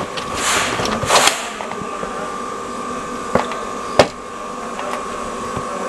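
A steady machine hum with a high whine through it, like a fan or air conditioner running. It is broken by a couple of rustles near the start and two sharp clicks around the middle.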